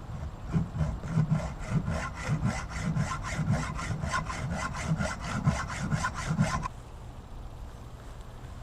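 Hacksaw cutting through the steel threaded-rod axle with steady back-and-forth strokes, about two a second, with a faint metallic ring, then stopping abruptly near the end.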